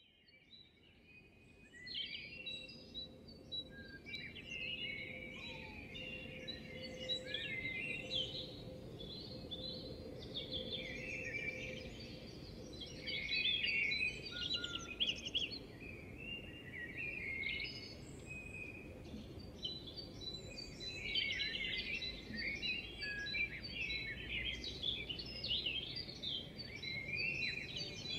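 A litter of four-week-old Bullmastiff puppies squeaking and whining, many short high-pitched squeals overlapping in a constant chatter.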